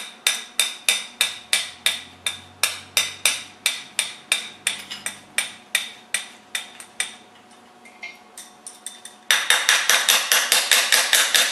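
A ratchet clicking as the starter-motor bolts are loosened, in steady clicks about three a second. It breaks off for a moment, then gives a fast, louder run of clicks near the end as the bolt is spun out.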